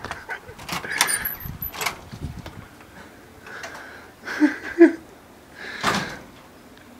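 Handling noise from a handheld phone camera being moved about: scattered knocks and rustling, with a short muffled voice sound about four and a half seconds in.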